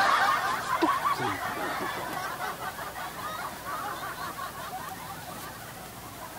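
Canned audience laughter: many voices laughing together, loudest at the start and fading away steadily.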